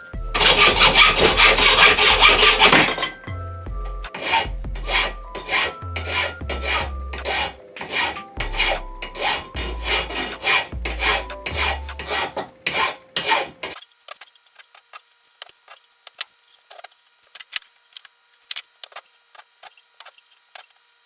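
A hand tool worked back and forth on wood while making crossbow bolts: about three seconds of loud, dense scraping, then steady strokes about two a second, with background music. The strokes stop about two-thirds of the way through, leaving faint clicks under the music.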